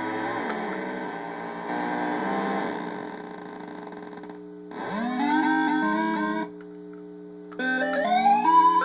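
Circuit-bent Little Tikes toy tea kettle's sound chip playing glitchy, pitch-bent electronic tones over a steady low hum. The notes jump in steps and slide upward, and the sound cuts out abruptly twice before restarting.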